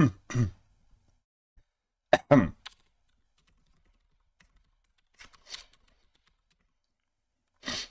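Typing on a computer keyboard: sparse, soft key clicks in short runs. A short throat sound, the loudest thing here, comes about two seconds in, with another brief one at the very start.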